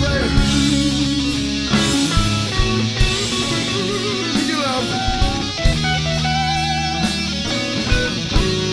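Electric guitar playing a lead line with bent notes and vibrato, over a rock band recording with drums.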